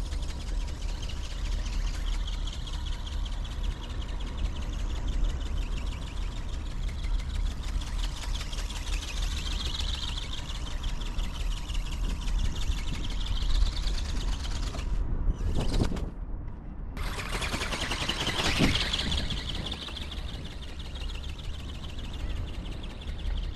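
Small electric ornithopter's geared brushless motor whining as the wings flap, its pitch and loudness rising and falling as it flies about. It briefly cuts out about 15 seconds in, then swells loudest a few seconds later. Wind rumbles on the microphone throughout.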